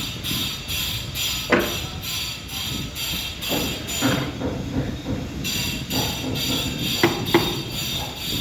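Music with a steady, quick beat of about three high, jingling pulses a second, which drops out briefly midway. Three sharp knocks cut through it, one about a second and a half in and two close together near the end.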